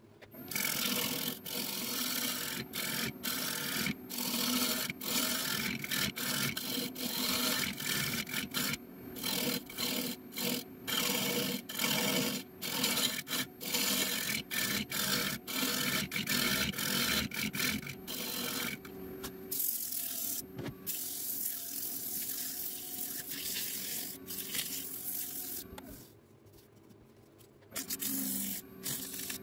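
Woodturning tool scraping into a pine bowl spinning on a lathe, in rasping strokes broken by many short lifts of the tool. It goes softer after about nineteen seconds, almost stops near the end, then comes back briefly.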